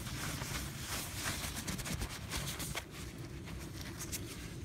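Shop towel wiping out the inside of a plastic carburetor float bowl: a rustle of cloth rubbing on plastic, made of many quick short strokes.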